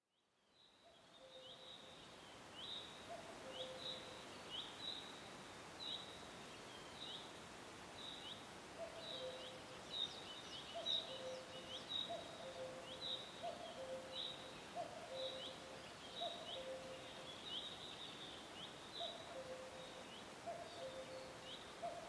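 Forest ambience of birds calling over a steady hiss: a high chirp repeats about once a second, and a low two-note call, stepping down from the higher note to the lower, comes in runs. The sound fades in from a brief silence at the start.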